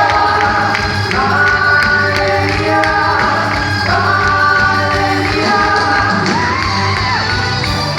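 Loud music for a quadrilha junina dance, with singing over held melodic notes and a steady percussion beat.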